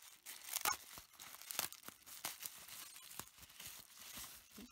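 Plastic bubble wrap crinkling and crackling as hands pull it open, with a few sharper crackles about half a second and a second and a half in.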